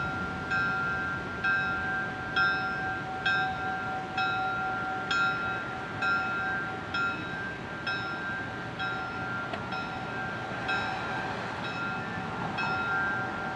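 Diesel locomotive's bell ringing steadily, about one strike a second, as the train moves slowly. A steady high whine runs under the bell.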